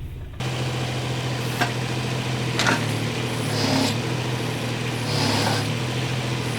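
Mini excavator engine running steadily while it digs, with a few knocks about two and three seconds in.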